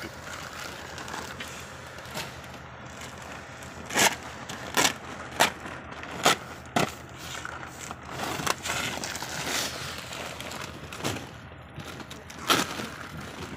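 Irregular sharp knocks and thumps, five in quick succession from about four to seven seconds in and one more near the end, over a steady outdoor background noise.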